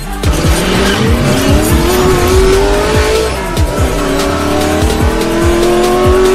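A car engine accelerating: its pitch rises steadily for about three seconds, drops back, then climbs again, like an upshift under hard acceleration. It plays over music with a steady drum beat.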